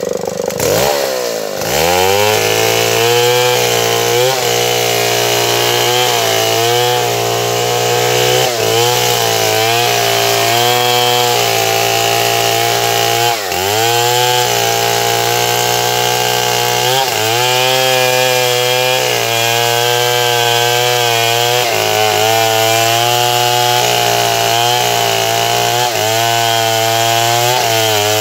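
Stihl 070, a large two-stroke chainsaw, revving up about a second in and then running at high speed while cutting through wood. Its pitch sags briefly every few seconds as the chain loads in the cut, then recovers.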